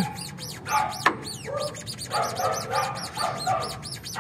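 Honda Civic EG's rubber lower control arm bushing squeaking over and over, about two squeaks a second, still squeaking after a spray of silicone lubricant. It seems louder, which the owner puts down to the lubricant not having dried yet. Dogs bark at the same time.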